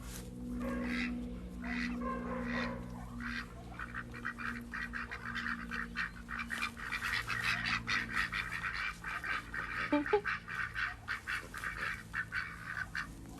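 A farmyard flock of fowl calling: a long run of rapid, honking, quack-like calls that is busiest in the middle of the stretch, over a low steady hum.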